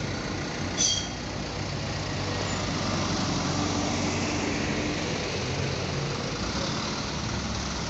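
Diesel trucks and cars rolling past slowly in a line with their engines running; the sound swells as a box truck passes close by a few seconds in. A brief high squeak is heard about a second in.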